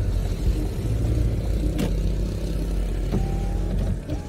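Car interior noise while driving slowly: a steady low engine and road rumble heard from inside the cabin, with a faint short tone a little after three seconds.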